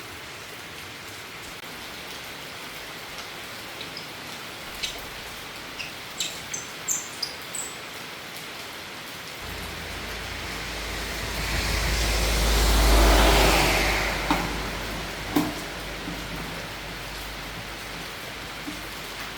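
Steady rain falling, with scattered short drips and ticks. About ten seconds in, a rushing swell with a low rumble rises, peaks, and fades over several seconds.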